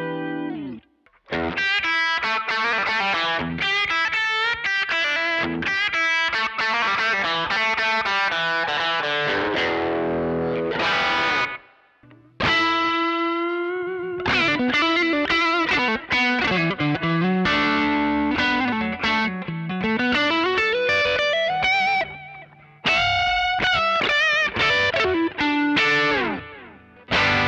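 Overdriven electric guitar, a Suhr Classic S played through a Joyo American Sound amp-simulator pedal with King of Tone overdrive, Starlight delay and Golden reverb, playing lead lines. It pauses briefly twice. About two-thirds of the way through, a slow pitch bend dips down and comes back up.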